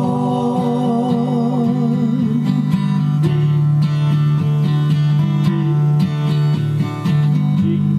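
Acoustic guitar strumming chords in a slow worship song. It opens under a held sung note with vibrato that ends about two and a half seconds in.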